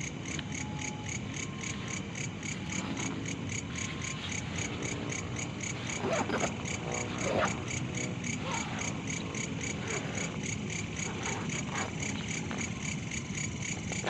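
Night insects, crickets or similar, chirping in a steady rapid pulse of about five beats a second. A few louder, wavering calls or noises come through about six to eight seconds in.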